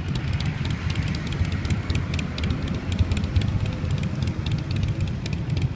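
Quad bike engine running with a deep, uneven rumble and rapid crackling clicks.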